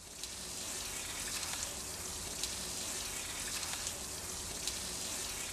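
Steady hiss of splashing water that fades in at the start, with faint crackles through it.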